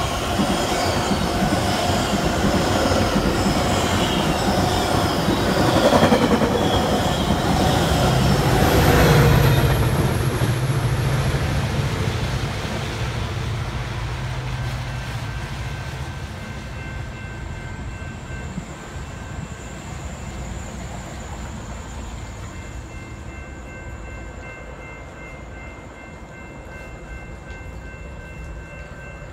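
Metra express commuter train of bilevel cars running through the station at speed: a rush of wheel and rail noise that peaks twice, then a low engine hum as the diesel locomotive pushing at the rear goes by. It dies away to a fading rumble after about fifteen seconds.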